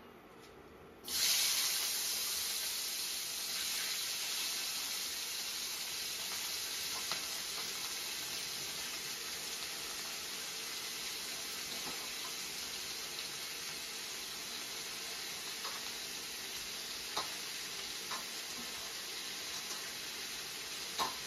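Chopped mixed vegetables dropped into hot oil in a kadai: a sizzle starts suddenly about a second in and goes on steadily as they fry, with a few light taps from stirring.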